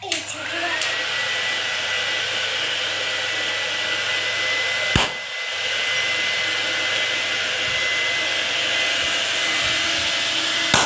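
Handheld electric hair dryer blowing steadily. Its motor whine rises as it spins up at the start and then holds a steady high pitch. A sharp click comes about halfway through.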